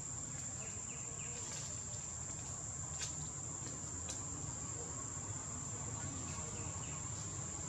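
Insects singing in a steady, unbroken high-pitched drone, with two sharp clicks about three and four seconds in.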